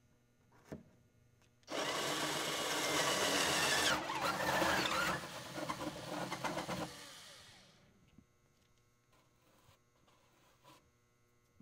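Cordless drill driving a hole saw through a hull panel, starting about two seconds in and cutting steadily for about five seconds, its pitch shifting partway through, then winding down as the saw breaks through.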